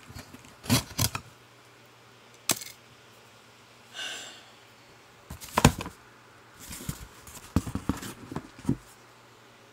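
Cardboard box being handled and opened by hand: scattered sharp knocks and scrapes with a short rustle, and a quick cluster of knocks near the end.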